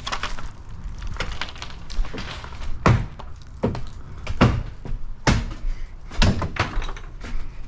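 Repeated heavy blows on wood, the strongest coming about once a second after the first few seconds, with smaller knocks and clatter between: wooden structure being knocked apart during demolition.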